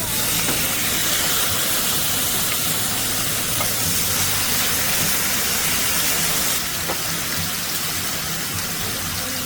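Food sizzling loudly in a hot frying pan, a steady dense hiss that starts abruptly and eases a little about two-thirds of the way through.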